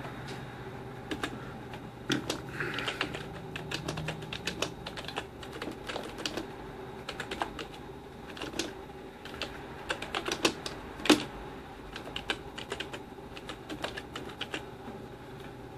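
Typing on a keyboard: irregular key clicks, with one louder click about eleven seconds in.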